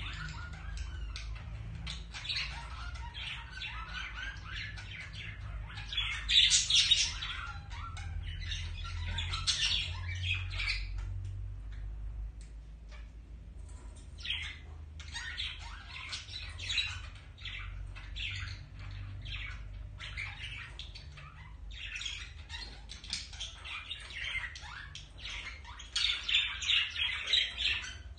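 Budgerigars chattering in fast runs of chirps and squawks, the courtship chatter of a pair. Short lulls break the chatter, and the loudest bursts come a few seconds in and near the end.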